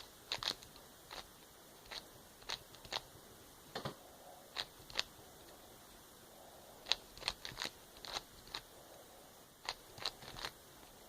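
Rubik's cube faces being turned by hand: quick plastic clicks in irregular runs of a few turns each, with a pause of about two seconds midway.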